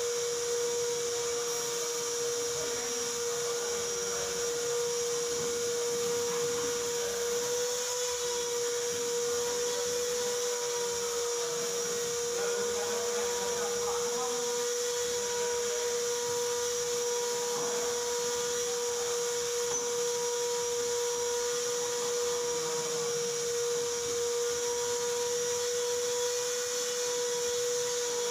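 A machine whining at one steady, unchanging pitch, with a hiss above it.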